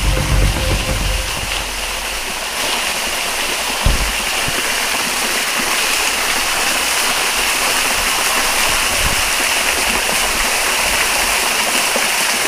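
Small waterfall (a water spout pouring down a rock face) splashing steadily into a shallow pool below. A single short thump comes about four seconds in.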